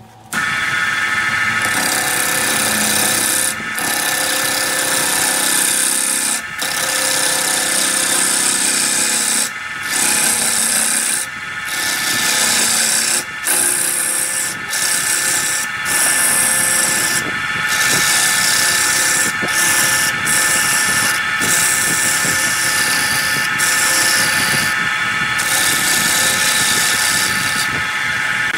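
Wood lathe starting up and spinning a large wood blank while a turning gouge cuts into it: a steady motor hum under a loud cutting noise, broken by many short gaps.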